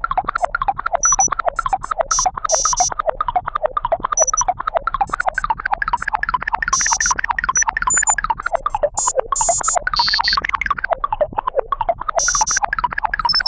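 A rapid run of short synthesized blips, several a second, hopping up and down in pitch, with scattered brief buzzy bursts mixed in: electronic key-press sound effects.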